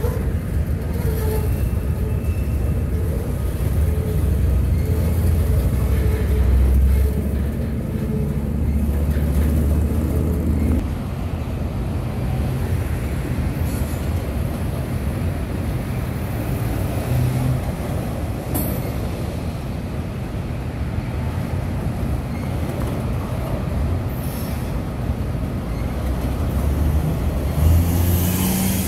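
Loaded freight cars of a trash train, containers on flatcars and steel gondolas, rolling over a steel girder railroad bridge: a steady low rumble of wheels on rail. It is louder for the first ten seconds or so and eases a little about eleven seconds in.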